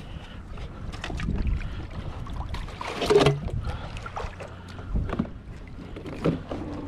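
Water lapping against the plastic hull of a pedal kayak, with low wind rumble on the action camera's microphone and scattered small clicks and knocks. A louder knock comes about three seconds in.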